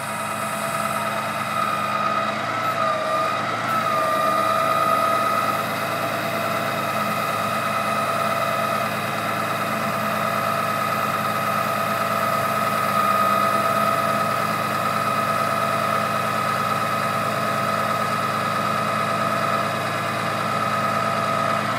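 Truck's Cummins 6.7L diesel running steadily at idle while the boom hydraulics operate, with a steady high whine over the engine hum; the whine dips briefly in pitch about three seconds in.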